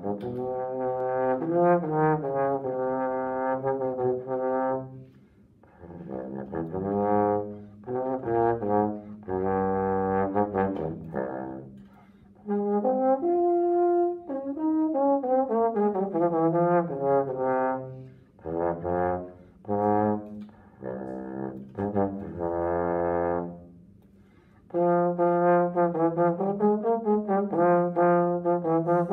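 Solo trombone playing a slow melody, with sustained notes in phrases separated by short breaths about every five or six seconds. Some notes glide in pitch between others.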